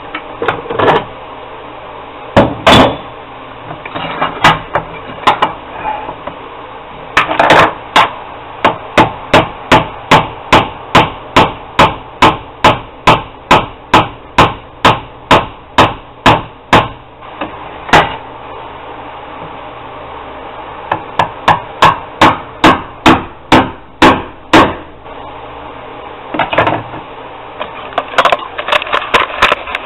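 Hammer blows on a deer-antler handle piece held in a vise: a few scattered strikes, then long runs of sharp, steady strikes at about two a second, with pauses between the runs.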